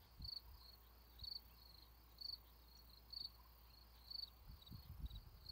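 Faint chirping of an insect, one short high chirp about once a second, with a few soft low thumps in the second half.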